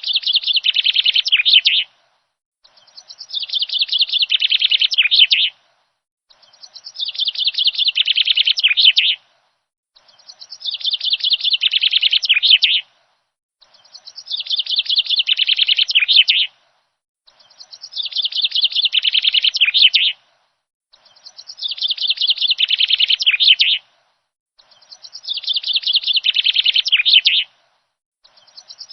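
A songbird's phrase of fast, rapid chirping notes, repeated in the same shape about every three and a half seconds, with dead silence between phrases: a single recorded song played over and over.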